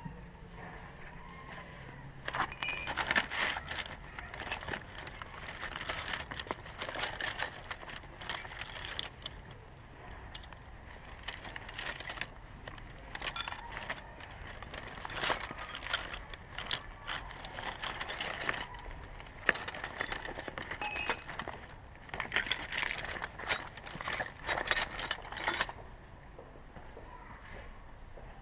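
Metal hand tools clinking and clicking as a 10 mm bolt on a car's engine is worked loose with a wrench, in irregular bursts of light clatter with short quiet gaps.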